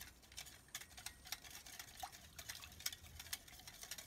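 Wire whisk beating a thin soy sauce and cornstarch sauce in a glass bowl: rapid, irregular light clicks of the wires against the glass, with a faint splash of liquid.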